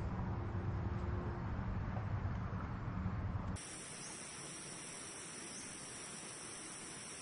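Steady low rumbling ambience that cuts off abruptly about three and a half seconds in, replaced by a quieter, steady high-pitched hiss.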